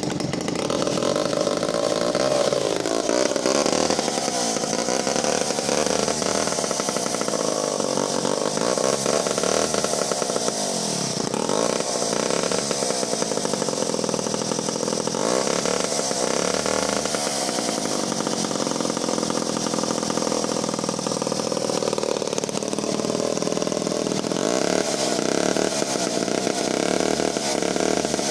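Vintage Clinton D55 two-stroke chainsaw running, its engine revved up and down several times between steadier running.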